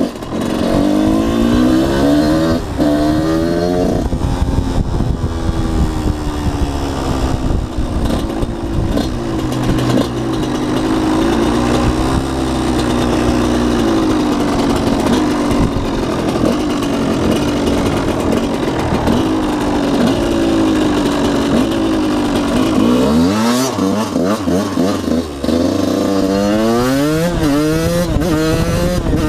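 Freshly rebuilt Yamaha YZ125 two-stroke dirt bike engine revving up through the gears, the pitch climbing in repeated sweeps. It holds a steadier speed through the middle, drops off briefly, then accelerates hard through the gears again near the end.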